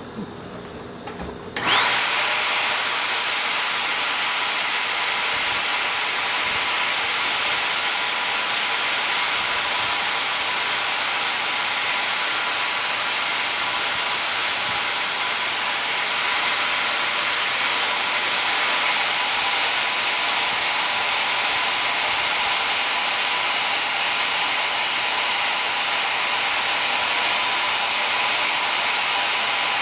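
A high-speed electric motor spins up with a quick rising whine about two seconds in, then runs steadily with a strong rush of air and a high, steady whine.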